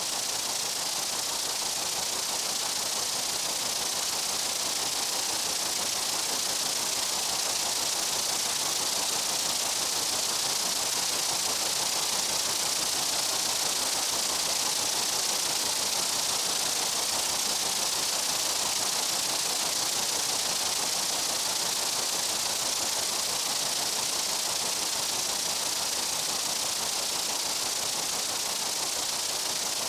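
Steady insect buzzing in a summer meadow: a dense, even, high hiss with no separate calls standing out.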